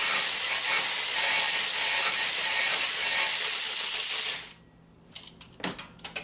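Cordless electric ratchet running steadily as it spins the starter's lower mounting bolt out through a long socket extension. It stops abruptly about four seconds in, followed by a few light clicks and knocks of the tool and extension.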